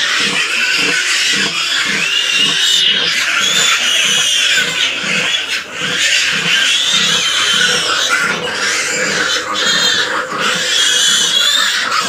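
Yorkshire sow grunting in an even, rapid rhythm of about two to three grunts a second while her newborn piglets suckle. This is the nursing grunt that goes with milk let-down. Over it the piglets squeal in high, rising-and-falling calls every second or two.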